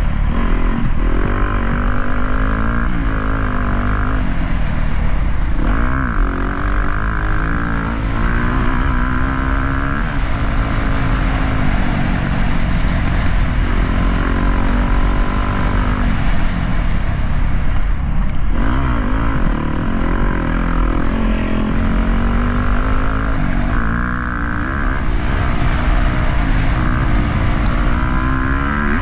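Dirt bike engine running as it is ridden, its pitch repeatedly rising and falling as the throttle is opened and closed through the gears.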